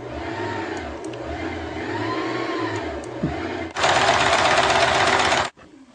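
Shark Sew Easy electric sewing machine running under the foot pedal, stitching through fabric. It runs steadily and moderately loud for several seconds, then much louder for nearly two seconds before it stops suddenly near the end.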